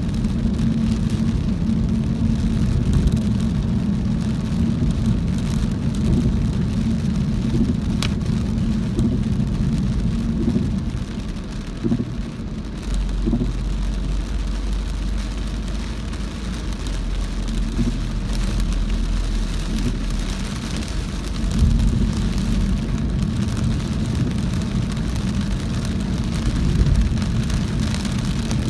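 A car driving through very heavy rain: rain hitting the car over steady engine and road noise. A deeper low rumble comes in for several seconds in the middle, and there is a single sharp click early on.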